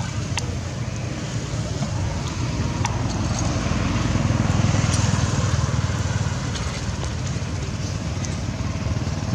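Steady rumble of motor traffic, swelling a little around the middle, with a few faint clicks.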